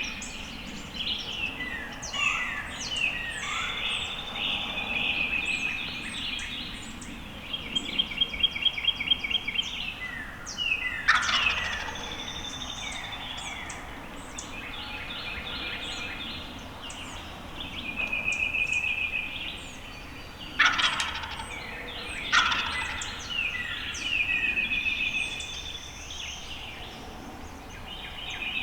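Wild turkey gobbler gobbling several times, each gobble a loud falling rattle, over a background of songbirds chirping and calling.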